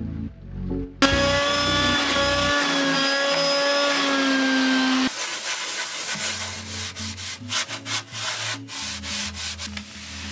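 A metal scraper blade rasping along a painted wooden drawer, with a steady squeal, starting abruptly about a second in and lasting about four seconds. Then a sponge scrubbing the inside of a drawer in a run of short rubbing strokes.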